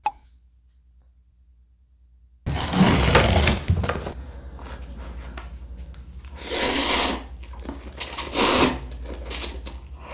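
A click, then about two seconds of quiet, then several loud bursts of close-miked eating: ramen noodles being slurped and chewed.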